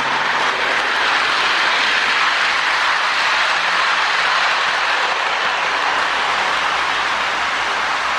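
Two Lionel MPC NW-2 toy switcher locomotives running together on three-rail track: a steady whirring rumble of their electric motors and gears and metal wheels on the rails, easing off slightly near the end.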